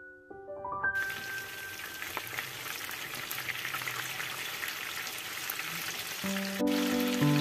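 Battered chicken breast pieces sizzling in hot oil in a frying pan on medium heat, an even crackling hiss. A few piano notes fade out at the start and soft piano music comes back in near the end.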